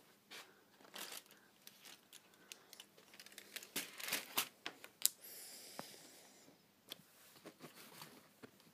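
Plastic wrapping on a chocolate box crinkling and crackling as it is handled, with a longer tearing rip about five seconds in.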